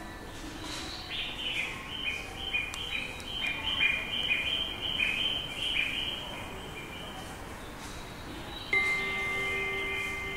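Railway platform stair-location guide sounds, which mark where the stairs are: recorded bird chirping plays from a speaker as a run of quick, high chirps for about six seconds. About nine seconds in, the first, higher note of the two-tone electronic chime starts sharply and rings on steadily.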